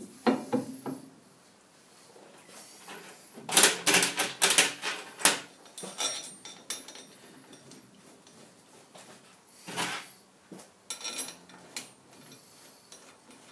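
Steel clinking and clattering as machined steel fixture plates are set onto a lathe carriage and socket head cap screws are started into them. There is a quick run of sharp clicks about three to five seconds in, then scattered single knocks.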